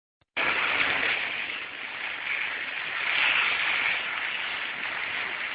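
Heavy rain falling, a steady hiss that starts suddenly less than half a second in.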